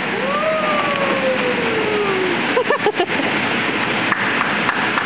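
Steady rushing noise of an inflatable bounce house's air blower. A long falling vocal call starts just after the beginning, with a few short wavering voice sounds near the middle.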